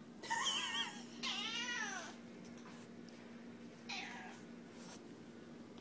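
Cat meowing: two meows in the first two seconds, the second longer and bending down in pitch at its end, then a shorter, fainter meow about four seconds in.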